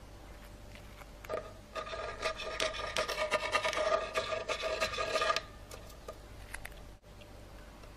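Rapid rasping, scratching strokes that start about a second in and run for about four seconds, then stop.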